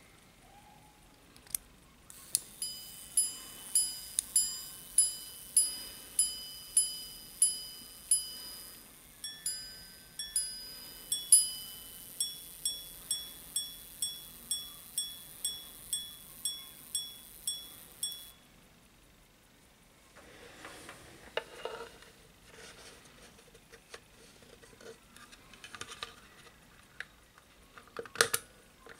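Minute-repeater pocket watch striking the time on its gongs. It gives a run of slower low strikes, then a few two-tone ding-dongs, then a faster run of higher strikes that stops about 18 seconds in. After that come soft knocks and scrapes of handling against a wooden sounding board.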